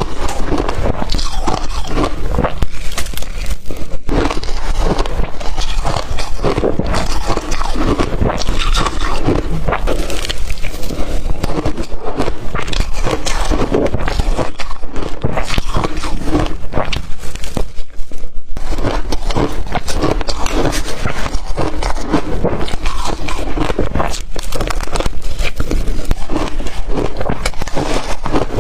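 Close-miked chewing of blender-crushed ice: loud, dense crunching and crackling that goes on without a break.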